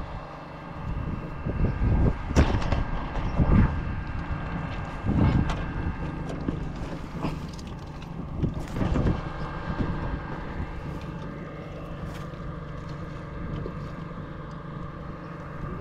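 Wind buffeting the microphone in irregular gusts, loudest in the first few seconds, over a steady low hum.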